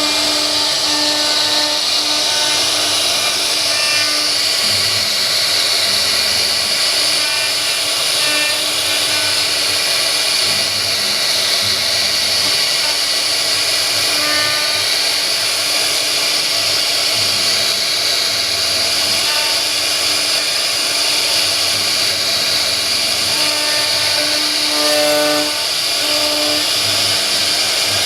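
Wood CNC router running steadily with a high, even hiss, with short humming tones of changing pitch coming and going as the machine moves.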